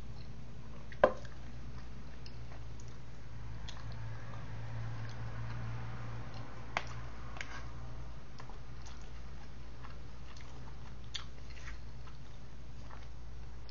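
Eating sounds: chewing, with a metal fork clicking and scraping in a takeout food tray in scattered light ticks, and one sharp knock about a second in. A steady low hum runs underneath.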